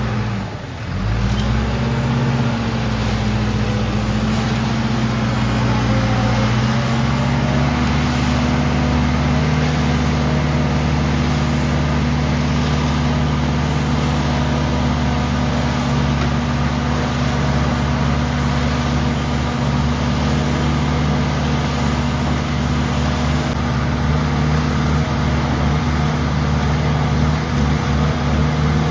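Self-loading concrete mixer's diesel engine running steadily under work. The engine note dips briefly about a second in, then settles, and shifts again around six to seven seconds in.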